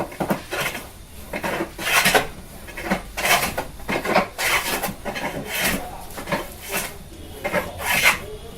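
Rasping strokes of a hand tool on wood, repeated roughly once a second in an uneven rhythm.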